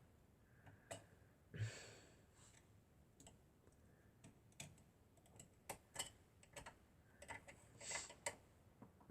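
Near silence broken by scattered faint clicks and light taps, about a dozen, irregularly spaced: small parts being handled on a sewing machine.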